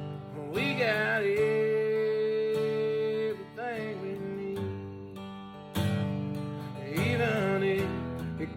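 Country-style song with acoustic guitar and a sliding, wavering lead melody line, no words sung.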